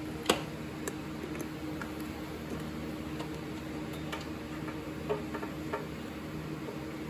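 Scattered sharp metallic clicks and taps of hand tools and parts being handled while a crankshaft position sensor is fitted and bolted up on a Jeep 4.0 engine. The sharpest click comes about a third of a second in, and a steady low hum runs underneath.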